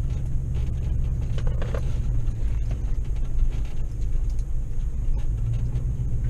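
A vehicle rumbling steadily along a rough dirt two-track, heard from inside the cabin, with a few light knocks about a second and a half in.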